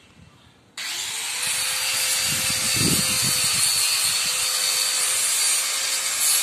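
A handheld power tool on a steel canopy frame starts suddenly about a second in, its pitch rising briefly as the motor spins up, then runs steadily and loudly with a hissing, whining noise.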